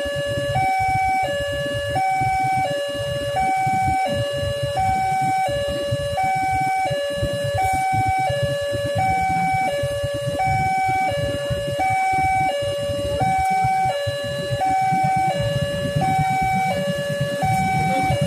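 Railway level-crossing warning alarm sounding steadily, an electronic two-tone signal alternating evenly between a higher and a lower tone while the barriers are down. Under it is the low rumble of traffic waiting at the crossing.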